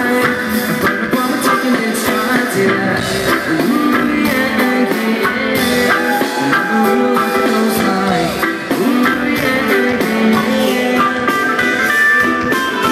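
Live reggae-rock band playing at a concert, with guitar prominent over drums.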